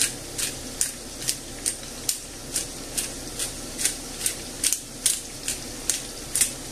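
Hand-twisted pepper grinder cracking mixed peppercorns on a coarse setting: a short gritty crunch with each twist, about two and a half a second, in an even rhythm.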